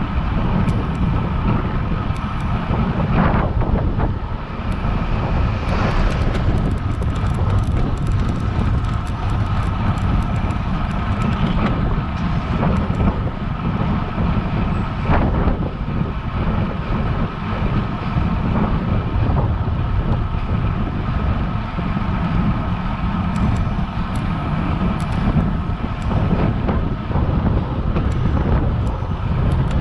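Wind buffeting the microphone of a camera riding on a road bike during a climb: a steady, loud low rumble, with a faint steady whine and a few brief clicks.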